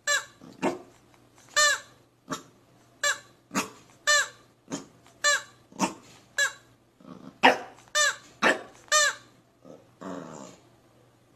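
Corgi puppy barking in short, high yaps, about two a second, with a softer, rougher sound near the end.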